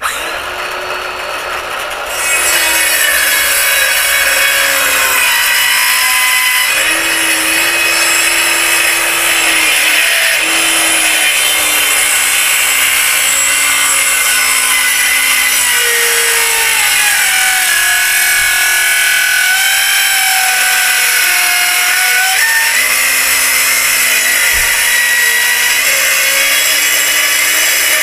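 Ryobi power saw running and cutting through a wooden 2x4. It starts suddenly, gets louder about two seconds in, and its motor pitch wavers and shifts with the load.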